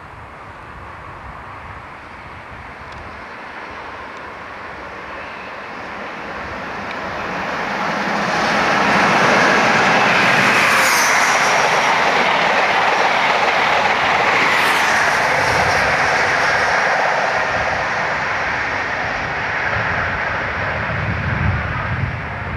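GNER HST (InterCity 125) diesel train approaching and passing at speed: rushing wheel and engine noise swells over about eight seconds, peaks with two brief high-pitched sounds about four seconds apart as the power cars go by, then fades as it draws away. Near the end a deeper engine rumble builds from a class 47 diesel locomotive running light on the next line.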